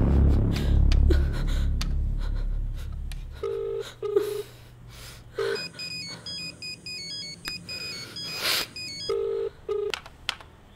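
A basic keypad mobile phone ringing with a beeping electronic ringtone of quick high notes, with short paired low beeps before and after the melody.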